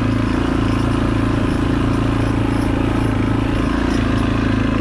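A 4S FPV freestyle quadcopter's brushless motors and propellers buzzing at a fairly steady pitch in flight.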